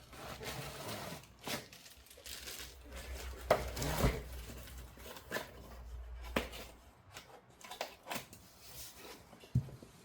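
A package being torn open and its wrapping crinkled by hand, with scattered knocks and handling bumps.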